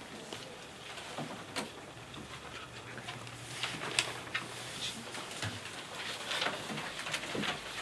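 Quiet room tone of an exam room: faint rustling of paper and pens writing, with scattered small clicks and knocks from desks and chairs.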